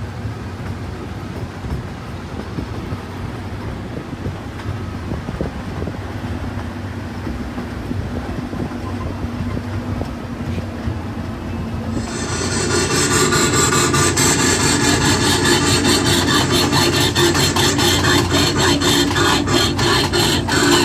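Casey Jr. Circus Train ride cars rolling along their track, wheels rumbling and clacking over the rail joints. About twelve seconds in the sound suddenly gets louder and brighter, with a steady clatter that quickens toward the end.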